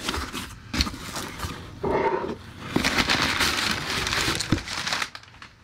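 Cardboard box flaps being folded open, then crumpled brown packing paper rustling and crinkling as a hand digs through it, the rustling heaviest from about three seconds in.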